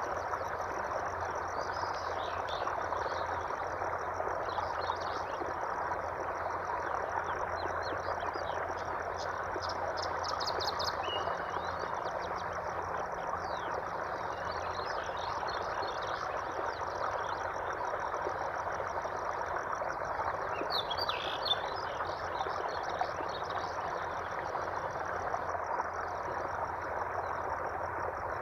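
Nature soundscape: steady running water under a continuous fast, high trill, with scattered bird chirps, clustered about two seconds in, around ten seconds in, and again near the twenty-one-second mark.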